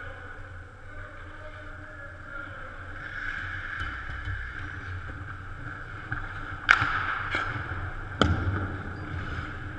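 Ice hockey play: the steady scrape of skates on the ice close by, and three sharp knocks in the second half, the first and last the loudest, about a second and a half apart.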